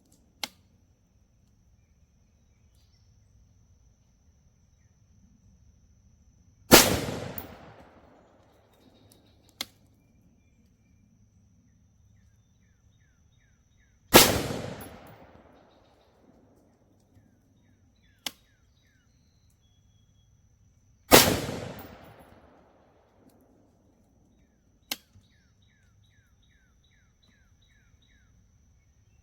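Three single rifle shots from a PSA Sabre 15 AR-15 firing .223 Remington, spaced about seven seconds apart, each followed by a rolling echo. Fainter sharp clicks fall between the shots.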